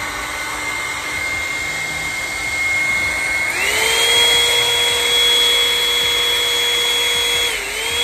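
Revlon One-Step hot-air brush dryer running: a loud rush of air with a motor whine. About three and a half seconds in, it is switched to a faster setting and the whine rises smoothly in pitch and the sound gets louder. The pitch dips briefly near the end before it is switched off.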